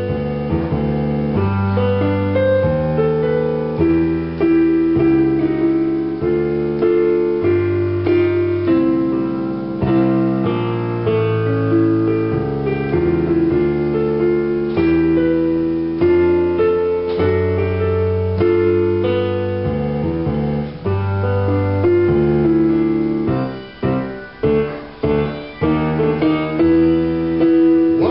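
Kurzweil digital stage piano playing a slow passage of held chords under a moving melody, with a run of short, clipped chords near the end.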